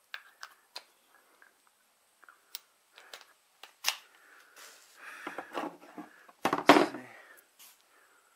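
Scattered clicks and clinks of a hand-held hydraulic ram and its metal fittings being handled and fitted together, with a louder clatter about six and a half seconds in.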